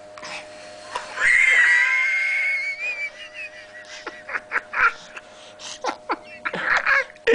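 A seven-month-old baby gives one long high-pitched squeal about a second in, then a run of short breathy puffs and little squeaks while air is blown in her face.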